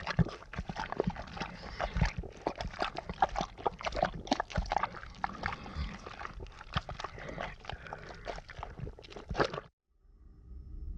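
Horror sound effect: a dense, irregular run of clicks and crackles over a low rumble, cutting off suddenly near the end. A low droning tone with faint high tones begins just after.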